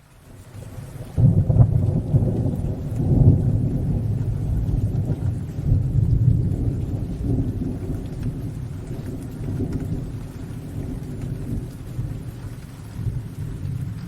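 Long low roll of thunder that breaks in sharply about a second in and slowly rumbles away, with faint rain underneath.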